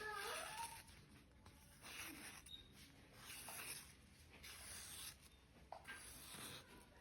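Faint scraping strokes of a knife blade drawn across a sharpener, about five strokes roughly a second and a half apart.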